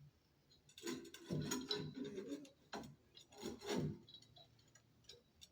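Metal shower valve trim parts being handled and fitted: rubbing and scraping in a cluster of short bursts from about one second in to about four seconds in.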